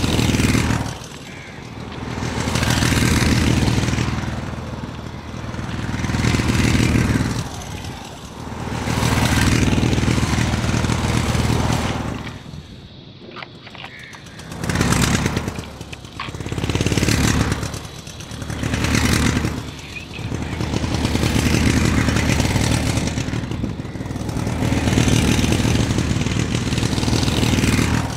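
An engine sound that swells and fades again and again, roughly every two to three seconds, with a brief lull about halfway through.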